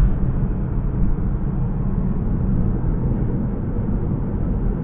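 Steady low rumble of a vehicle driving along a highway: road and engine noise with no change in pace.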